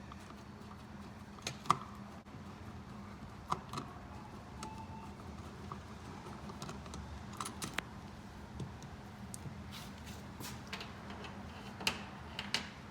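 Scattered small clicks and taps of a hand screwdriver working the screws of an electrical outlet and its plastic bracket as the outlet is unscrewed, over a faint steady hum.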